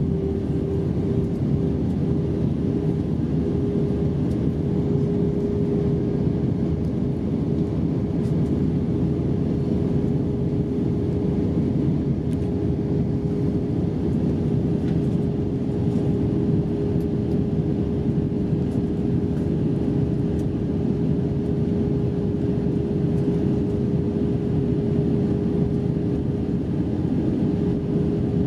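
Airbus A320-232 cabin noise in flight: a steady rush of airflow and the IAE V2500 engines, with a constant hum running through it and no change in level.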